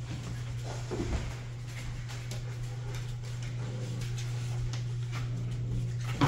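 Rottweiler puppies scuffling and padding about on a foam play mat, with a few soft knocks and a sharper, louder knock near the end, over a steady low hum.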